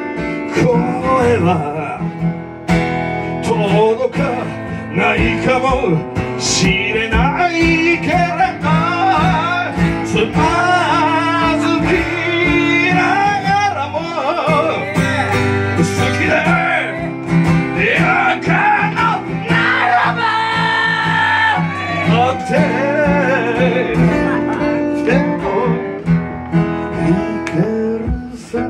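A song: a singing voice over guitar accompaniment.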